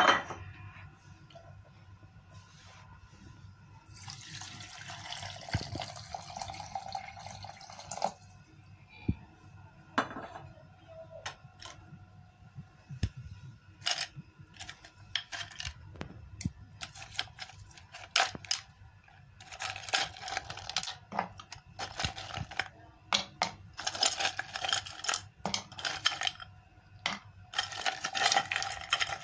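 Milk poured into a glass blender jar, then ice cubes clinking and clattering against glass as they are tipped in, with spells of pouring liquid in between.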